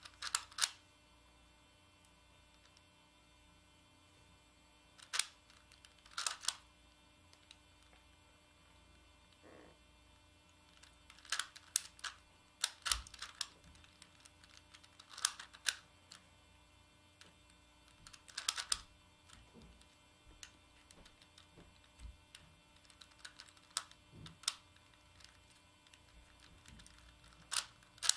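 Plastic Megaminx puzzle being turned by hand: clusters of sharp clicks and clacks as its faces snap round, with pauses between turns. A faint steady hum runs underneath.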